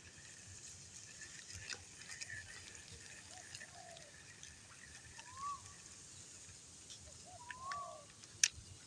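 Faint animal calls: short arched, whistle-like notes in little groups, repeating about every two seconds, over a faint steady high tone and light hiss. A sharp click near the end.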